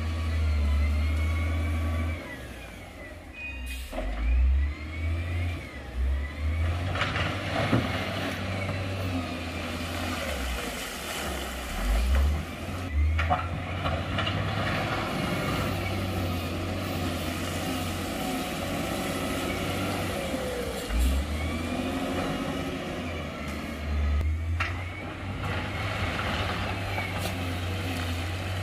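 Heavy construction vehicle's diesel engine running and revving up and down, with a few sharp knocks.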